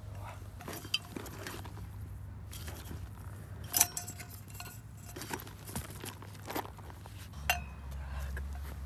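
A stainless-steel mug and a glass bottle clinking as they are handled and taken out of a bag, with some rustling: several sharp clinks, a few of them ringing briefly, the loudest about four seconds in.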